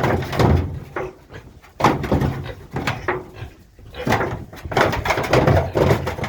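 Pigs in a pen calling loudly, about five rough, noisy calls each lasting up to a second, with short gaps between them.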